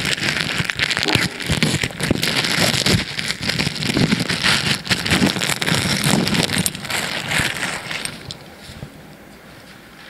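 Clear plastic wrapping crinkling and rustling as it is unwrapped by hand, a dense irregular crackle that dies down about eight seconds in.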